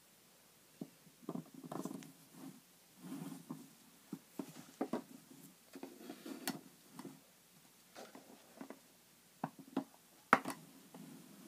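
Small plastic eraser trays and erasers being handled and set down on a table. Irregular light clicks and rustling begin about a second in, with one sharper knock near the end.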